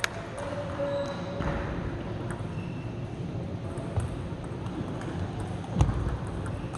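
Scattered, irregular clicks of table tennis balls striking tables and bats around a large sports hall, with one duller, louder thud about six seconds in.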